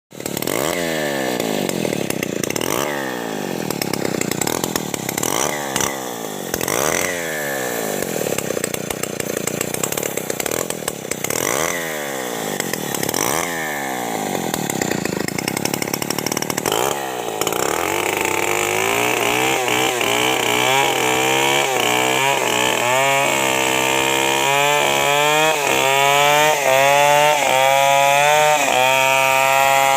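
Two-stroke chainsaw revving up and down repeatedly while cutting into a tree, then settling into a steadier, higher run in the cut about two-thirds of the way through.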